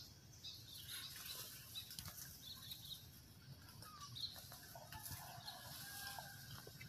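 Quiet outdoor background: soft rustles and small ticks, with a few faint high chirps.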